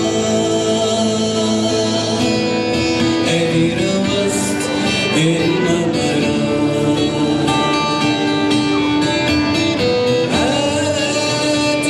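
Singing with guitar accompaniment, one voice holding long notes over a steady plucked-string backing.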